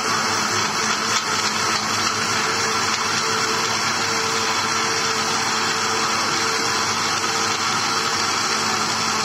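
Electric mixer grinder with a steel jar running steadily at full speed, blending boiled jackfruit seeds with milk into a shake.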